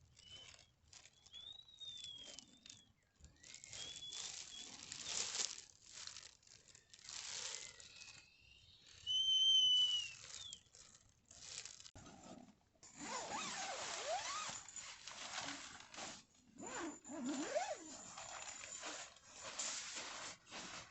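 Camping gear being handled: bursts of rustling, crinkling and scraping, with a few short high whistled notes, the loudest about nine seconds in.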